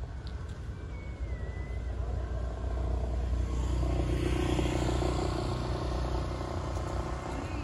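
A motor vehicle's engine passing on the street over a steady low traffic hum; it grows louder about three seconds in and eases off toward the end.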